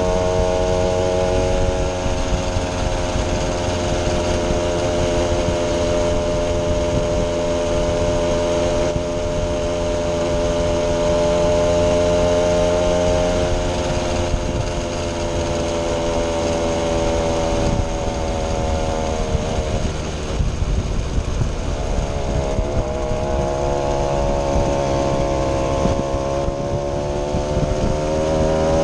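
Vintage moped's small two-stroke engine running while riding: a steady buzz that drops in pitch about two-thirds of the way through, then climbs back up near the end.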